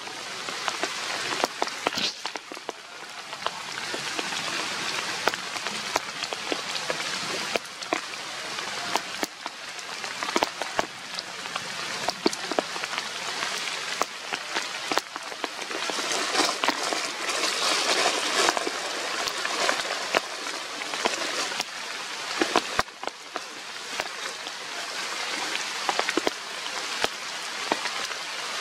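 Steady rain falling on forest foliage and leaf litter, with many individual drops ticking sharply; it swells heavier for a few seconds past the middle.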